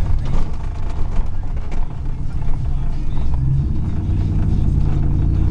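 2000 Chevrolet Silverado's 4.8-litre V8 running through a 3-inch exhaust while the truck is driven. The engine note is uneven at first, then settles into a steadier drone that grows slowly louder from about four seconds in.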